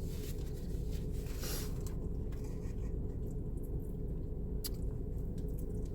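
Quiet eating between bites: faint scraping and handling of food and packaging over a steady low hum, with one sharp click late on.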